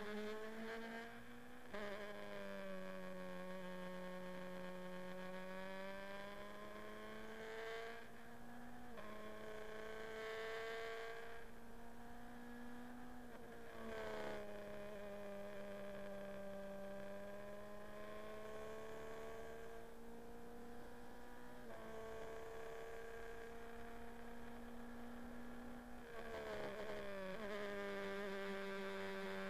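Formula Renault 2.0 race car's four-cylinder engine at high revs, heard from the onboard camera. The pitch drifts slowly within each gear and steps suddenly at gear changes about every five to eight seconds.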